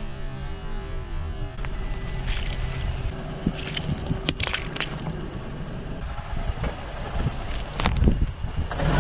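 Car tyre rolling slowly over a squishy plastic toy spider and flattening it over a low vehicle rumble, with sharp cracks and pops about four to five seconds in. Background music stops about a second and a half in. A louder crunch comes near the end as the tyre presses onto a wooden roller massager.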